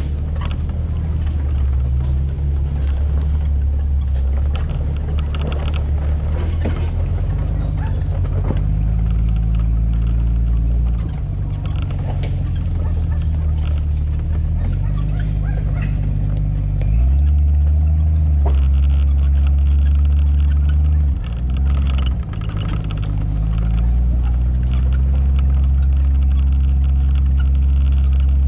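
An off-road SUV's engine runs at low revs as it crawls along a gravel trail. The note drops, then rises louder about two-thirds of the way through and briefly dips twice before settling. Occasional sharp clicks and knocks come from stones under the tyres.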